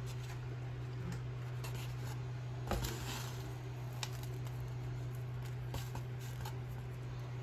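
Faint scattered clicks and taps from small objects being handled, over a steady low hum.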